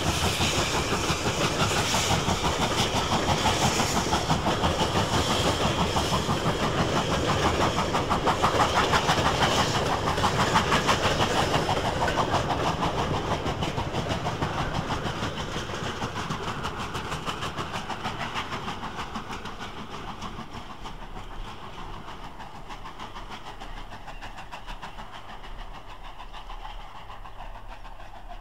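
LMS 'Princess Royal' class 4-6-2 steam locomotive with a passenger train, working hard as it climbs a 1 in 146 gradient, its exhaust beating rapidly and evenly. It is loudest about ten seconds in, then fades steadily as it draws away.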